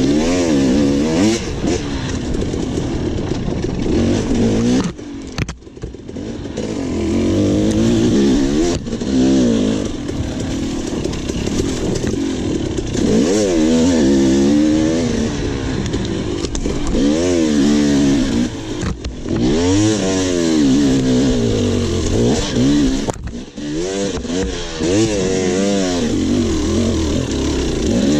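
Enduro dirt bike engine revving hard and easing off again and again as the throttle is worked on and off. The engine note drops away briefly about five seconds in and again about twenty-three seconds in.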